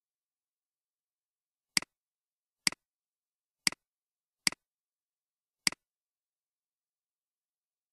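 Five computer mouse button clicks at uneven intervals, each a sharp press followed at once by a softer release.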